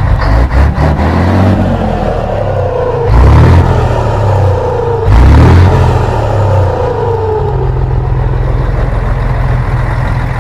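Scania 113 H truck's diesel engine idling, blipped twice about two seconds apart, with the turbocharger's whistle falling away after each rev. The turbo is fitted with a 'pente' (a comb in its intake) to make it sing.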